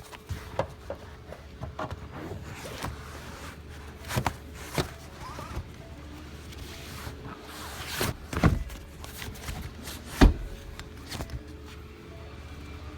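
Irregular knocks, thuds and rubbing from a car's rear seat and its trim being handled and pushed back into place; the loudest thud comes about ten seconds in. Faint background music and a low steady hum run underneath.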